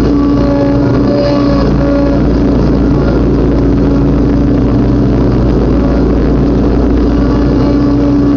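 Riding lawnmower engine running steadily and loudly at a constant speed while mowing long grass, heard close up from a mount on the mower.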